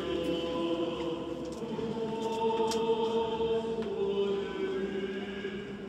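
Orthodox liturgical chant sung a cappella by a choir, several voices holding long notes in parts that shift slowly from chord to chord. A couple of faint clicks sound about one and a half and two and a half seconds in.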